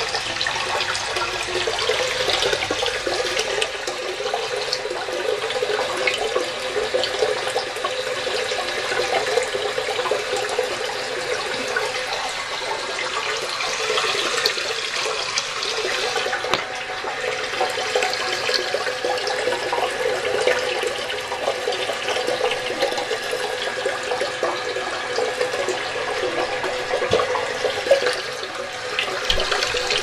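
Toilet tank refilling after a flush: a Fluidmaster 400A fill valve running with a steady rush and hiss of water into the open tank and bowl.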